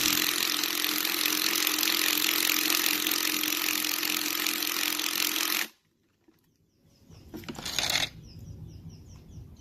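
Small impact wrench hammering steadily on a 13 mm shifter bolt for about six seconds, then stopping suddenly, with one more short burst a couple of seconds later. The bolt's welded nut has broken loose, so the bolt keeps turning instead of backing out.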